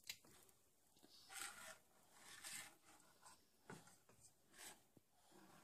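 Faint scraping of a spoon against a metal mixing bowl of pancake batter, a few short strokes about a second apart.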